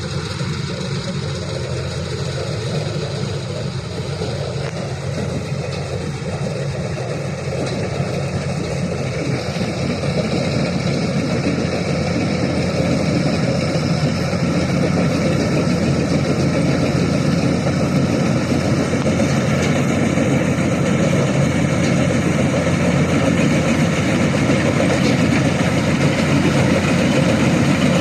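Kubota DC-120X combine harvester running steadily, its engine sound getting louder from about a third of the way in and then holding.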